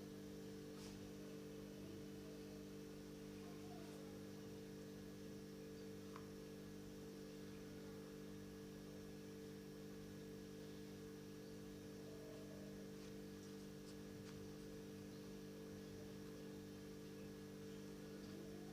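A steady low hum made of several held tones, with a few faint clicks.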